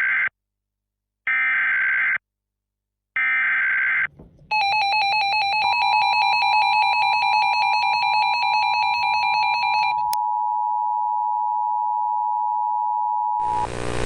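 Emergency Alert System data bursts: the screechy digital header tones, repeated with about a second of silence between them. They are followed by a rapidly pulsing alert tone and the steady two-tone EAS attention signal. The pulsing stops about ten seconds in, and the steady attention tone holds until just before the end, when another sound begins.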